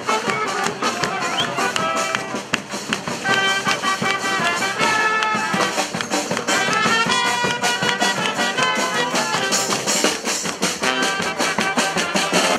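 Street brass band playing a lively tune: horns over a busy drum beat.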